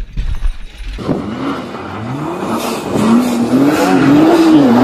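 A car engine revving hard while the car drifts on snow, its pitch rising and falling again and again and growing louder toward the end. It starts about a second in, where a low rumble cuts off.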